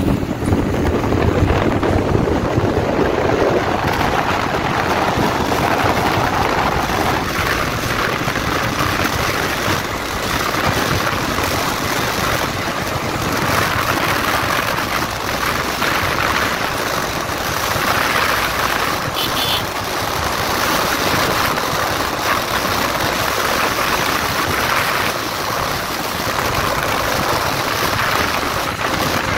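Bajaj Pulsar 220F motorcycle riding along a paved road: its single-cylinder engine is running under way, heard through steady wind and road noise on a handlebar-mounted microphone.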